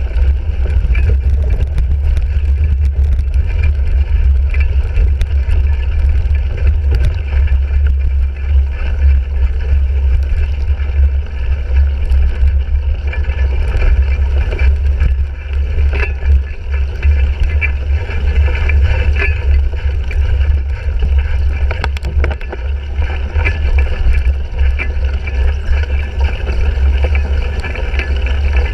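Cyclocross bike (2017 Fuji Jari 1.5) ridden at race pace, heard through its handlebar-mounted GoPro Hero 3: a steady heavy rumble of wind and riding noise, broken by frequent short clicks and knocks from the bike over rough ground.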